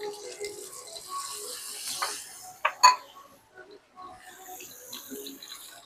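Hot oil sizzling around tempura-battered chicken wings deep-frying in a wok, with two sharp knocks close together about three seconds in.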